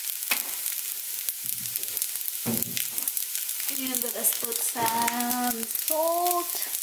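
Garlic fried rice sizzling and crackling steadily in a nonstick frying pan.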